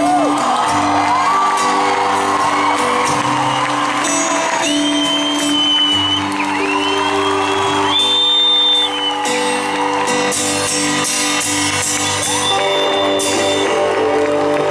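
Live pop song played out by the band with held notes and chords, while audience members whoop and shout over the music.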